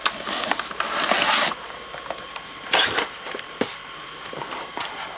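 Handling noise from a laptop being checked over: a rustling scrape for about a second and a half, then a few sharp clicks and knocks.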